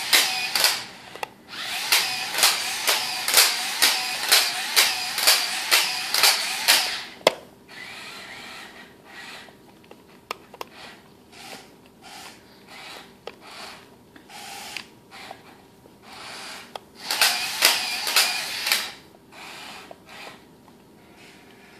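Attacknid spider robot's electric gear motors whirring as it walks, in rhythmic pulses about twice a second. It goes quieter about seven seconds in, with short scattered whirs, then runs again in a brief burst of pulses near the end.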